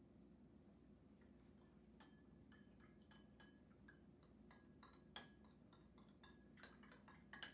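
Metal spoon clinking and tapping against a drinking glass while stirring powder into water: many light, irregular clinks, with a few sharper ones near the end.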